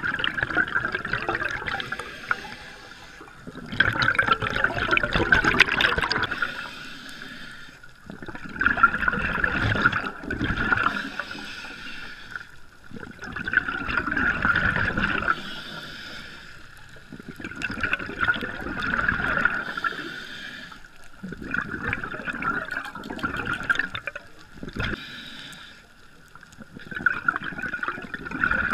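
Scuba diver's regulator breathing heard underwater: bubbles from each exhale gurgling past in bursts about every four to five seconds, with quieter pauses between.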